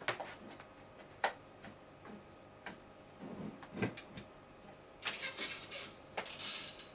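Cable and connector being handled: several separate sharp clicks and knocks, then two spells of rustling and scraping near the end.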